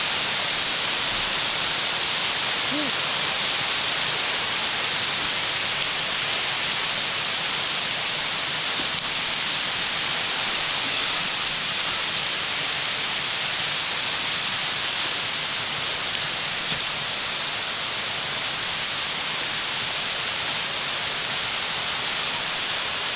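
Steady rush of a waterfall and creek running high after days of heavy rain.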